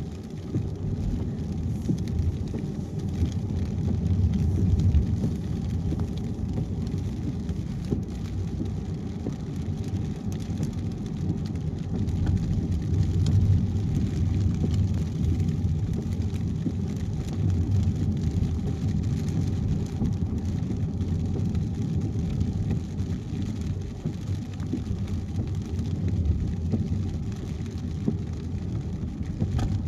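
Car driving on a wet highway in the rain: a steady low rumble of road and tyre noise, with a fainter hiss of rain and spray.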